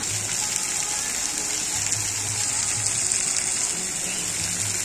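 Rain-curtain fountain running: many thin streams of water falling from an overhead ring of pipes onto the rocks below, a steady hiss of water.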